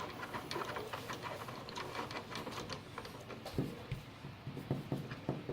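Small plastic toy-car kit parts clicking and rattling in quick, irregular succession as they are handled and pressed together, with a duller knock about three and a half seconds in.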